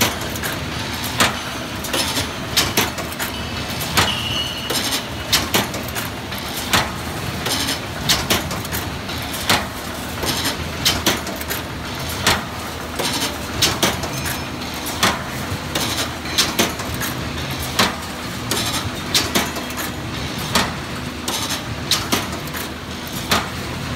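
Hinge joint field fence weaving machine running: a steady mechanical hum under frequent sharp clacks and knocks, irregular at about two a second.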